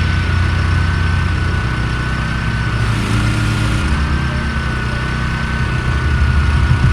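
Small gas engine of a pressure washer running steadily under load, with a steady high whine above the engine hum.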